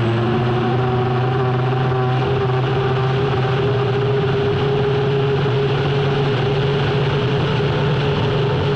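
Turbine engine of the U-9 unlimited hydroplane running hard, heard onboard as a loud, steady drone with a few held tones, one edging up in pitch in the first couple of seconds.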